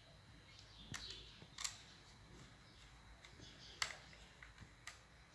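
Quiet handling of laptop parts during a drive swap: four faint, sharp clicks and taps spread over a few seconds.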